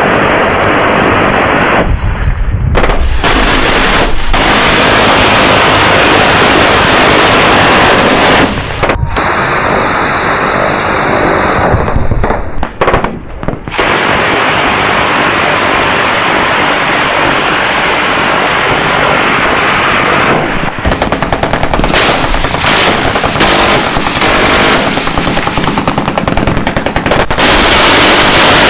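M134 Minigun, a six-barrel electrically driven rotary machine gun, firing long continuous bursts so fast that the shots run together into one dense ripping noise, broken by a few short pauses between bursts.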